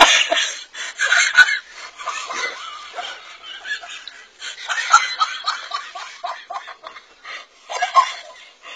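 Laughter: hearty laughing in bursts, with quick runs of cackling ha-ha pulses.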